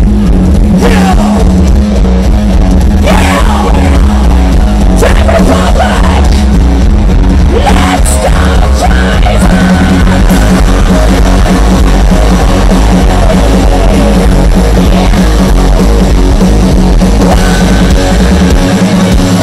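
Rock band playing live and loud, guitars and drums over heavy bass, heard from the middle of the crowd.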